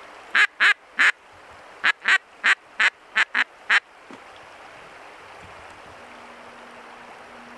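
Duck quacks, ten short calls in all: three quick ones, a brief pause, then a run of seven, ending about four seconds in.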